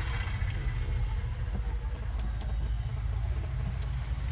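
A steady low mechanical hum, like a motor running, with a few faint small ticks over it.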